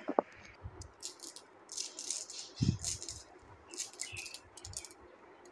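Marbles being handled in a gloved hand: two sharp clicks at the start, then scattered small clicks and rattling, with a soft knock about two and a half seconds in.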